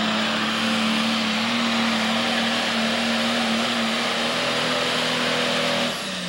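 Pro Stock pulling tractor's turbocharged diesel engine running flat out under load as it drags the sled, a loud steady drone. Near the end the throttle comes off, the sound drops and the engine note starts to fall.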